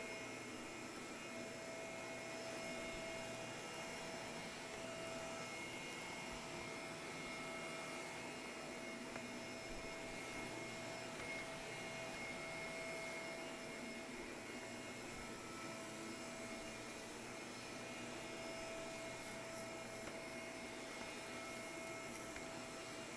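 Shark vacuum cleaner running on carpet: a steady motor and suction hum with a few constant tones, swelling and fading slightly every few seconds.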